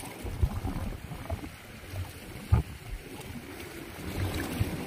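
Gusty wind rumbling on the microphone over open sea water, with a sharp knock about two and a half seconds in.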